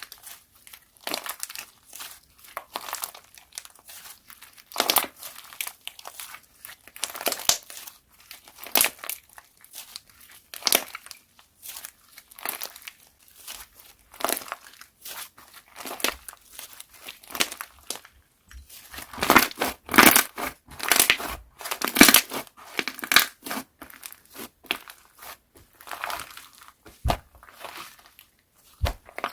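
Slime being squeezed and pressed by hand, giving an irregular run of crinkling, crackling clicks that are busiest and loudest about two-thirds of the way through.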